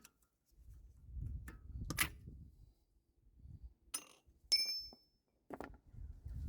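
Metal tools and parts clinking and knocking as they are handled, with one clear ringing metallic clink about halfway through.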